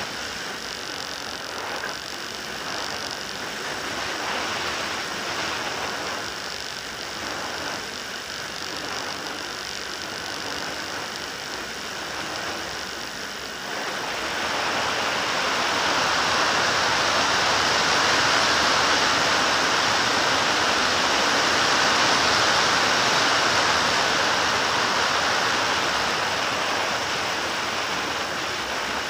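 An FPV aircraft's electric motor and propeller whirring, heard with wind rushing over the onboard camera's microphone. About halfway through it grows louder and turns into a broad rush, as the aircraft speeds up or dives.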